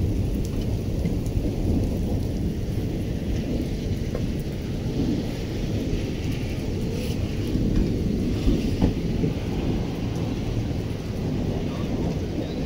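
Rain storm: rain falling on wet pavement, with a continuous low rumble underneath.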